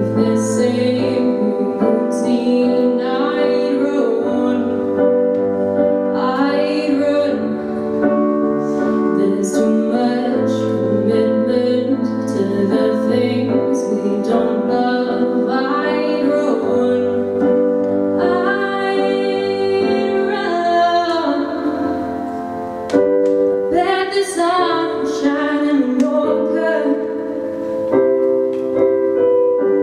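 A woman singing into a microphone while accompanying herself with held piano chords on a Roland RD-700GX digital stage piano.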